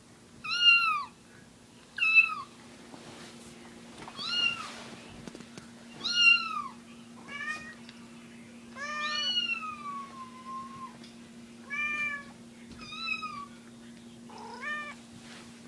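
A cat meowing over and over, about nine meows one to two seconds apart, each rising then falling in pitch, one about nine seconds in drawn out with a long falling tail. A faint steady hum runs underneath.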